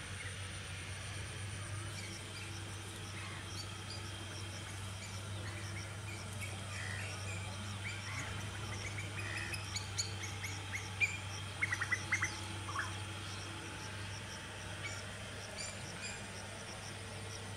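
Small birds chirping and calling, many short chirps through the middle and a quick burst of sharp calls about two-thirds of the way in, over a steady low hum.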